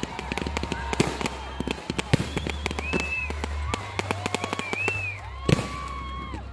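Fireworks display going off in quick succession: many sharp bangs and crackles of bursting shells, with one louder bang about five and a half seconds in.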